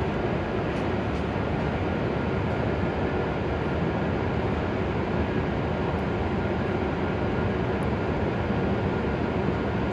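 E7-series Shinkansen train standing at the platform, its onboard equipment running with a steady, even noise.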